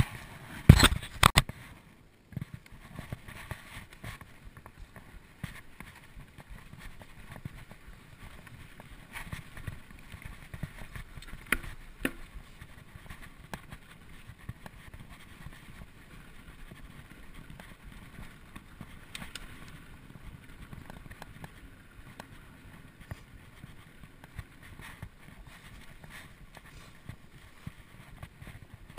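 2012 Specialized SX Trail mountain bike rolling down dirt singletrack: steady tyre noise with scattered rattles and clicks from the bike. A cluster of loud knocks comes about a second in.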